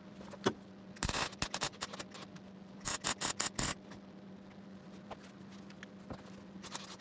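MIG welder tacking a steel body-panel seam in short bursts: a crackling burst about a second in followed by a few clicks, then a longer crackling, pulsing burst around three seconds in, over a steady low hum.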